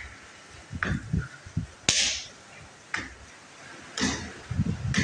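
Open-hand slaps against a pillar, four sharp smacks about a second apart, the second the loudest.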